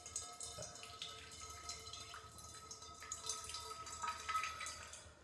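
Salt water from a neti pot running out of a nostril and dripping faintly into a stainless steel bowl.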